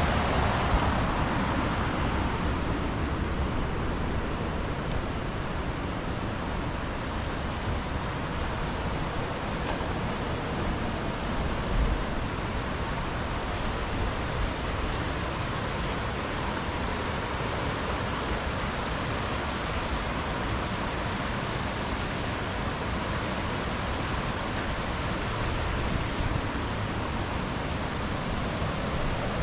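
Steady rushing of a multi-tiered cascading waterfall, an even wash of falling water with no pauses.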